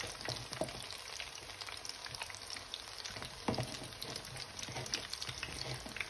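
Battered chicken pieces frying in shallow oil in a non-stick pan: a steady sizzle with scattered small crackles and pops, one louder pop about three and a half seconds in.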